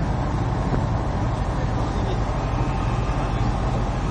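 Boat engine running steadily, a constant low drone with a noisy wash over it.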